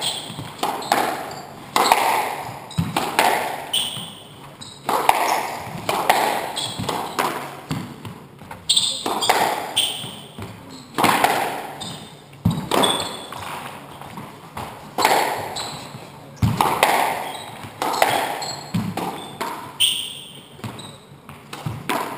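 A squash rally: the ball struck by rackets and smacking off the court walls, sharp echoing cracks about once a second, with short high squeaks of court shoes on the wooden floor in between.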